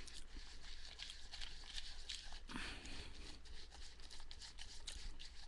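A utensil stirring and pressing a homemade granola mix of oats, almonds and sunflower seeds with peanut butter in a bowl. Faint crunching and scraping, with many small irregular clicks and a louder scrape about halfway through.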